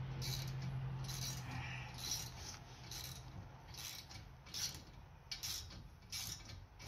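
Ratchet wrench with a T30 Torx bit clicking in short strokes, about one every second, as a fastener is turned back in during a brake pad job. A low hum sits under the first two seconds.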